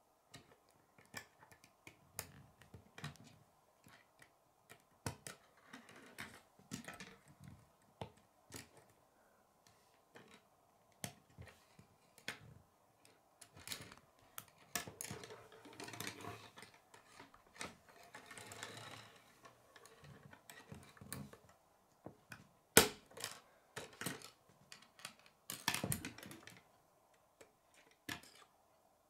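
K'nex plastic rods and connectors being handled and clicked together on a wooden table: irregular sharp clicks and snaps, with a stretch of rattling and rustling midway through. The loudest snap comes near the end.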